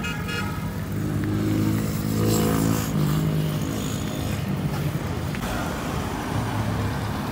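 Road traffic: a motor vehicle's engine running as it passes close by, loudest about two to three seconds in, over a steady traffic hum.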